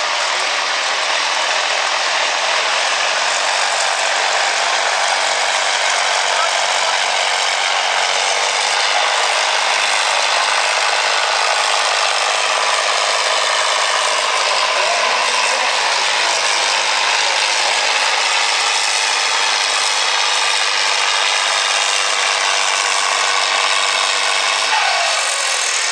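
Farm-stock John Deere diesel tractor running hard and steady under full load while dragging a weight-transfer pulling sled down the track.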